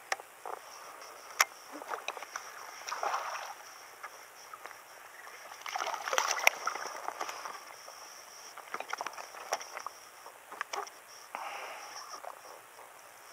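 A caught bass is dropped back into the lake, splashing about six seconds in. Water sloshes and sharp clicks and knocks come from handling the rod and line.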